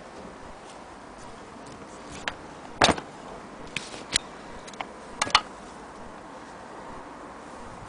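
Handling noise: a handful of sharp clicks and knocks, the loudest about three seconds in, with a quick pair a little after five seconds, as the sewing machine and its power cord and plug are handled. Under them is a faint steady hiss, and no sound of the machine running.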